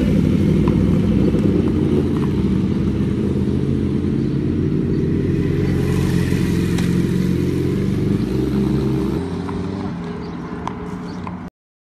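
Motorcycles and cars passing slowly, their engines running loud and steady, then fading from about nine seconds in; the sound cuts off abruptly near the end.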